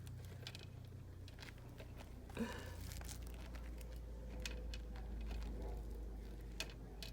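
Light handling of small plastic toy pieces: scattered soft clicks and a brief rustle as the tiny purse and closet parts are fiddled with, over a low steady hum.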